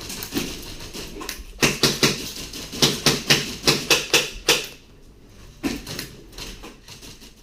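Airsoft guns firing indoors: a quick string of sharp shots, about five a second, in two groups broken by a short pause.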